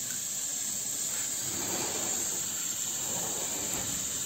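Gas-and-oxygen burner flames of an ampoule sealing machine jetting with a steady hiss, the gas pressure turned up high.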